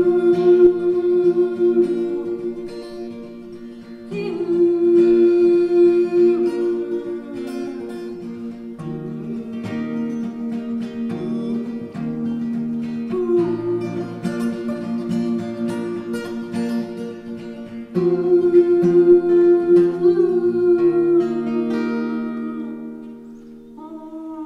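Background music: held chords with plucked acoustic guitar and a humming voice. New chords swell in every few seconds, and the music fades down near the end.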